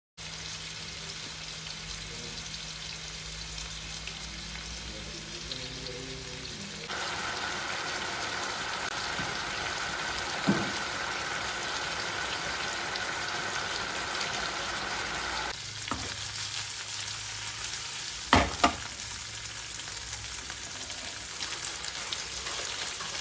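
Marinated chicken pieces frying in oil in a nonstick pan: a steady sizzle that gets louder about seven seconds in. A few sharp clicks, as of stirring against the pan, sound midway and twice close together later.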